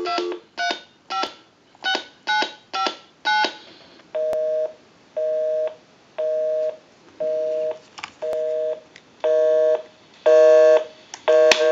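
Seven touch-tone (DTMF) digits keyed on a Harris TS22 lineman's butt set, heard through a test amplifier. They are followed by a busy signal: a low two-tone beep pulsing about once a second, eight times, because the number being called is the tester's own line, which is in use. A click near the end.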